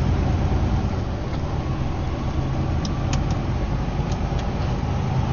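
Semi-truck engine running steadily while driving, a constant low rumble, with a few light clicks about three and four seconds in.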